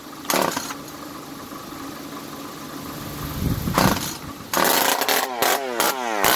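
Echo CS-341 two-stroke chainsaw being pull-started: a loud tug about three and a half seconds in, then a quick run of rope pulls, each a sharp rattling stroke with a whir falling in pitch. The recoil starter is the part the owner then finds not working.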